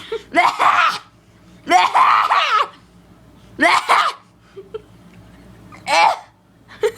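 A child imitating someone coughing: four loud, exaggerated voiced coughs about two seconds apart.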